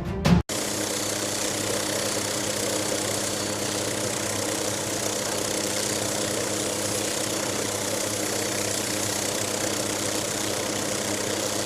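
MQ-8B Fire Scout unmanned helicopter running steadily: an even rushing engine and rotor noise with a constant low hum.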